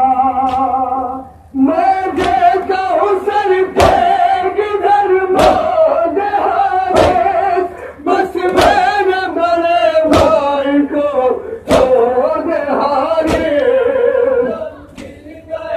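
Men chanting a Shia nauha, a mourning lament, in a slow, drawn-out melody, with crowd voices joining in. Sharp slaps of matam chest-beating land in time with it, about one every second and a half.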